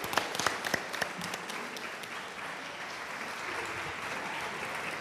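Audience applauding: separate claps stand out in the first second or so, then merge into an even patter of clapping.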